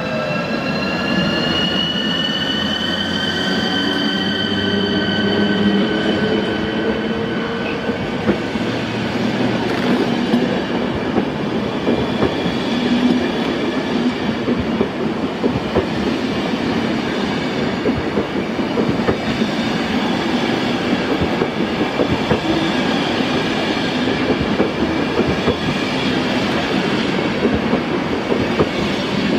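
Passenger train pulling out under electric traction: a rising electric whine during the first several seconds, then the coaches roll past close by with a steady rumble and a fast clicking of wheels over the rails.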